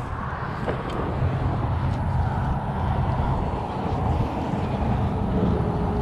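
Steady low outdoor rumble with no clear events.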